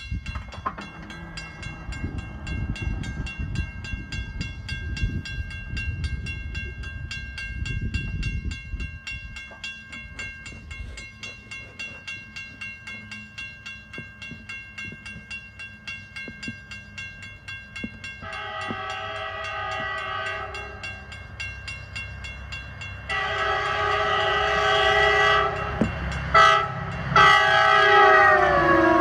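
A grade-crossing warning bell rings in rapid, even strokes. About two-thirds in, the approaching locomotive's multi-tone air horn sounds the crossing signal: long, long, short, long, the last blast dropping in pitch as the locomotive reaches the crossing.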